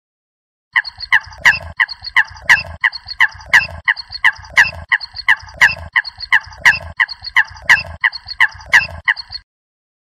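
Eurasian coot calling: a fast run of short, sharp notes, about three a second, each dipping slightly in pitch, beginning about a second in and stopping shortly before the end.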